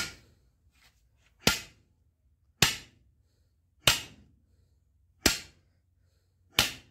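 Hammer striking steel sheet: six sharp, ringing blows at an even pace, about one every 1.3 seconds.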